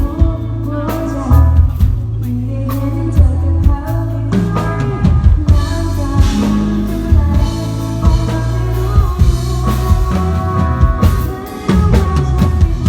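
A band playing a song live, with drum kit and bass under a sung melody.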